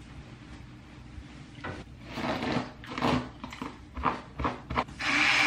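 A hairbrush drawn through long wet hair in a run of short, uneven rustling strokes. Near the end a louder steady hum and hiss starts.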